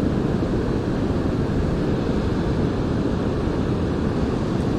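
Steady low noise of ocean surf breaking on a rocky shore, with wind buffeting the microphone.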